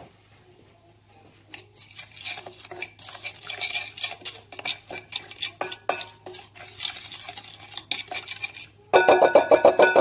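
Wooden spoon stirring olive oil and spices in a glass bowl, a run of quick clinks and scrapes against the glass. The strokes get fastest and loudest in the last second.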